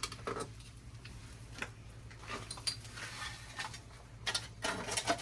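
Shovel scraping and digging into loose soil, in short irregular strokes about a second apart, over a steady low hum.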